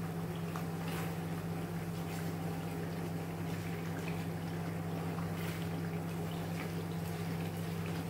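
Sauce simmering in a pot, stirred with a spoon in a few faint scraping strokes. Under it runs a steady low hum, which is the loudest thing heard.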